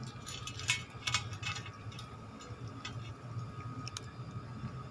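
Cat crunching dry kibble: a quick run of crisp crunches in the first second and a half, then a few single crunches.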